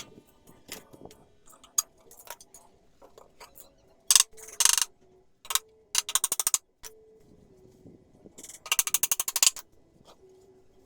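Power drill driving screws in short bursts of fast, even clicking, a few stops and starts, with faint ticks in between.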